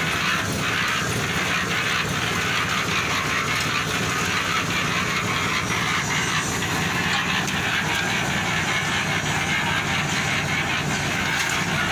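Portable drum concrete mixer running steadily, its engine humming under a dense, continuous rattle of the turning drum and its load.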